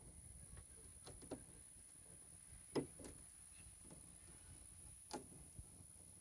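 Faint, scattered clicks and knocks of tools and parts being handled while a car's body panels are taken off, about six in all, the sharpest about three seconds in.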